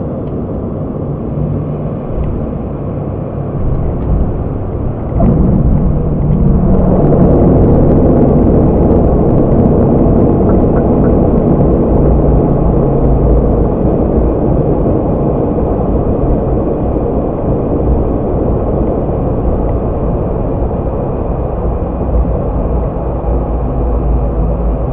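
ATR 72-600 cockpit during the landing rollout: steady rumble of the twin turboprops and the wheels on the runway. About five seconds in, the propeller noise swells sharply and stays loud, easing off only slowly, as the propellers are brought into reverse pitch to slow the aircraft.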